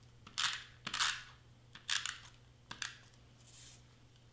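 Double-sided tape runner drawn along the edge of a cardstock cut-out in about five short strokes, each a brief scratchy zip, with a light click or two between them.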